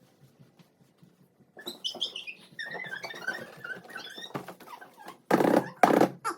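A dog whining in high squeaky yelps, then barking loudly in short barks near the end.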